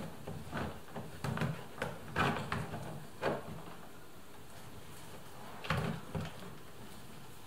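Irregular clicks and knocks of hands working at an open car door's fittings, several in quick succession over the first three seconds and a couple more near six seconds.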